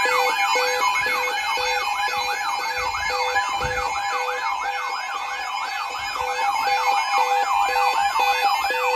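An electronic siren yelping, with fast rising-and-falling sweeps about three times a second, layered over a steady tone and a regular beep about twice a second.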